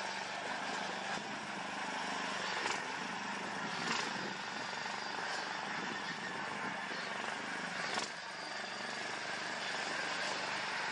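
Petrol mini tractor engine running steadily as the tractor drives along towing a trailer, with a few sharp knocks.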